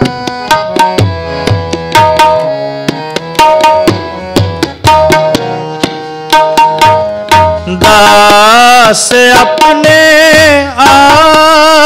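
Harmonium playing a held melody while tabla strokes keep a rhythm. About eight seconds in, a man starts singing a long, wavering line over the harmonium and tabla.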